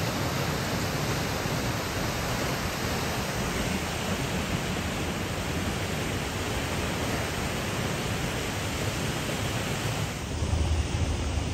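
Steady rushing hiss of a mountain river pouring over a concrete check dam. Near the end the hiss thins and a low rumble of wind on the microphone comes in.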